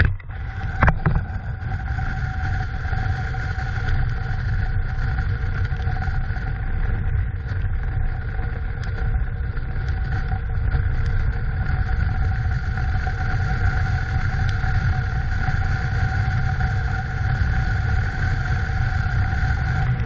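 Car driving at a steady speed: a steady low rumble of wind and road noise with a faint steady whine, and a brief knock about a second in.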